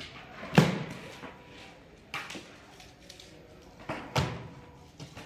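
Large cardboard shipping carton being opened with a cutter: a string of sharp thumps and snaps against the cardboard as the plastic packing straps are cut and pulled away. The loudest comes about half a second in, with more about two seconds and four seconds in.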